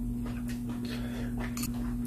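Metal chopsticks lightly clicking against a porcelain bowl a few times as food is picked up, over a steady low electrical hum.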